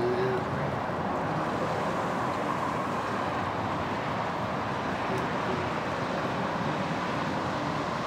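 Steady outdoor background noise: a constant hiss and rumble with no distinct sounds standing out.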